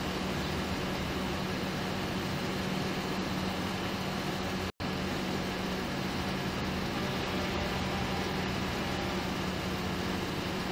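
Steady hum and hiss of an idling vehicle engine close by. The sound cuts out for an instant a little before the middle.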